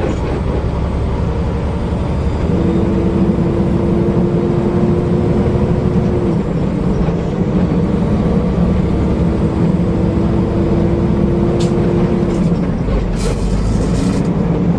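Semi truck driving down the highway, heard from inside the cab: a steady low engine and road rumble, with a faint hum that comes in twice for a few seconds each and settles a little lower near the end.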